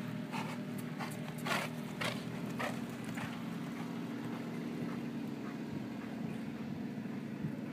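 A horse's hoofbeats on arena dirt as it lopes along the rail, about two strides a second, fading away as the horse moves off, over a steady low hum.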